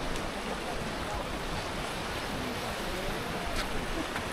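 Steady rushing noise, such as wind on an outdoor microphone, with faint voices in the background.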